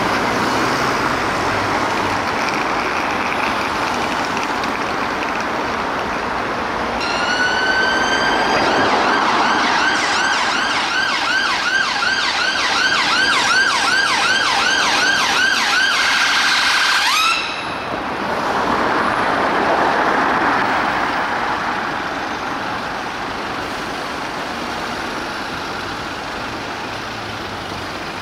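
London Ambulance Service Mercedes-Benz Sprinter ambulance sounding its siren over city traffic. About seven seconds in the siren starts as a long rising tone, switches to a fast yelp of about three sweeps a second, and cuts off suddenly about seventeen seconds in, leaving the traffic running.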